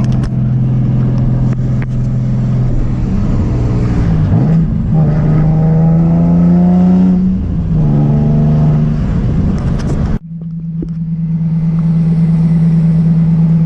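Car engine running while driving, holding a steady drone with a couple of rises and dips in revs. A sudden break comes about ten seconds in, then the steady drone again.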